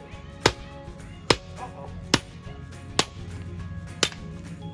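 Firewood being chopped: five sharp blows at an even pace, a little under a second apart, over background music.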